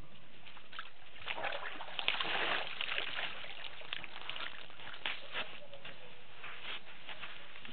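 Water sloshing and splashing as elephants drink at the edge of a waterhole: a run of short, irregular splashes, busiest about two seconds in, over a steady hiss.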